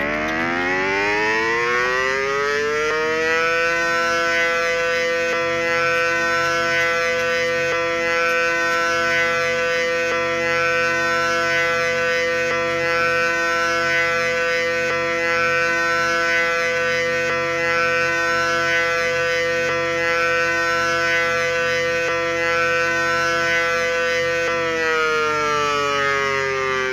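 Outdoor tornado warning siren winding up, its pitch rising over the first few seconds, then holding a steady wail for about twenty seconds before it begins to wind down near the end.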